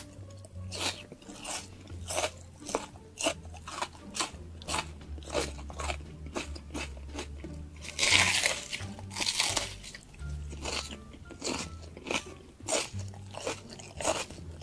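Close-up crunching of a raw onion being bitten and chewed: many short crisp crunches, with a louder run of bites about eight seconds in.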